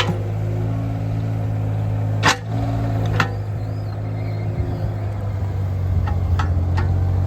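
Diesel engine of an IHI 35NX mini excavator running steadily at raised idle, getting louder in the second half as the hydraulics work the backhoe arm. Several sharp metallic knocks and clanks come from the arm and bucket, one near the start, two a few seconds in and a cluster near the end.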